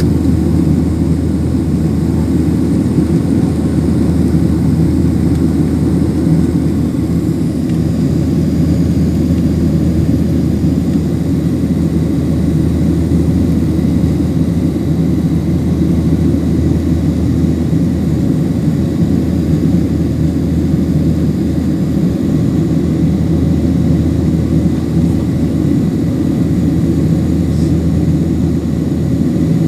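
Airliner cabin noise: the engines and rushing air make a deep, even rumble that holds steady without any change in pitch.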